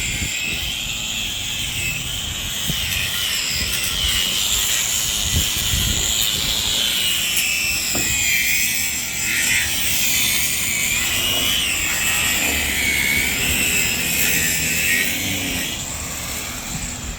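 Power grinder running continuously, its whine wavering in pitch as it bears on the work, grinding away fiberglass on the boat hull.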